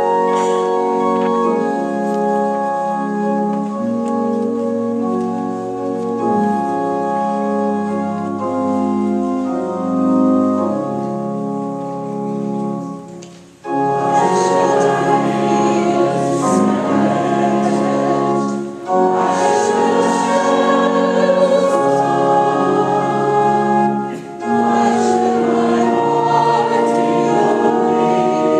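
Organ playing held chords as a hymn introduction, then, about halfway through, a congregation singing the hymn along with the organ, with short breath pauses between lines.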